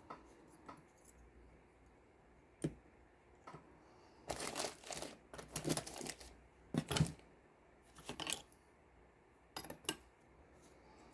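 Hands handling a replacement laptop LCD panel and its display cable: scattered light clicks and taps, with several short rustling bursts in the middle, the loudest a sharp rustle about seven seconds in.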